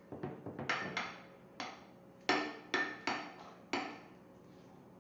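Metal ladle clinking against a glass baking dish as sauce is spread, about nine sharp knocks with a short ring, in two irregular clusters.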